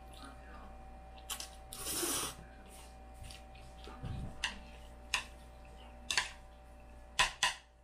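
Eating jajangmyeon noodles with chopsticks: a slurp about two seconds in, then several sharp clicks of the chopsticks against each other and the bowl, the loudest pair near the end. A faint steady hum runs underneath.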